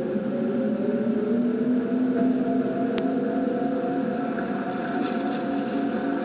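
TV soundtrack engine effect of a futuristic domed water craft: a steady hum of several held tones that glide upward at the start, with a single click about three seconds in. It is heard through a television's speaker.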